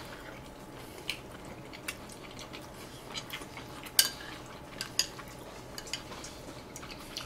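Spoons and chopsticks lightly clinking against ceramic bowls and plates as people eat: a scattering of small, irregular clicks, the sharpest about four seconds in.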